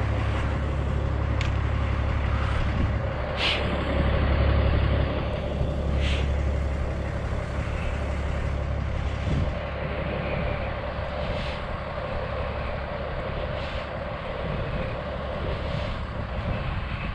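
Low, steady rumble of idling diesel truck engines with a steady hum over it, and a few short hisses at irregular moments.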